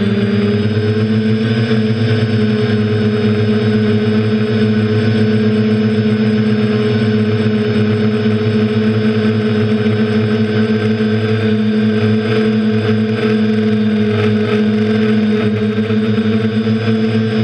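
Quadcopter's electric motors and propellers whining at a steady pitch, heard from the onboard camera, as the drone holds a near-constant throttle.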